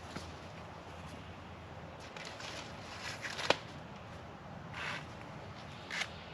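Scattered rustling and light clicks, with one sharper knock about three and a half seconds in.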